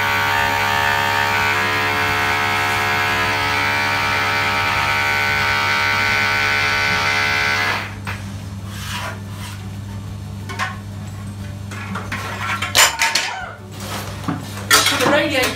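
A steady humming drone holds for about eight seconds and then cuts off suddenly. After it come scattered light knocks and clinks of hand tools and metal radiator parts being handled and set down on a hard floor.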